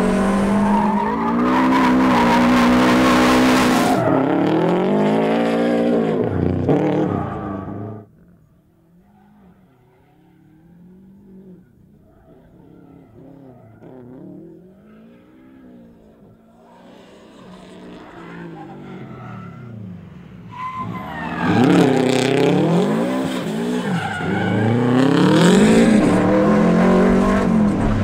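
Subaru Impreza rally car's turbocharged flat-four revving hard, its pitch swinging up and down as the car slides, with tyre skidding and loose-surface noise, heard loud from inside the car. About eight seconds in it suddenly drops to a much quieter, distant engine note that keeps rising and falling, and a little after twenty seconds the loud, close revving returns.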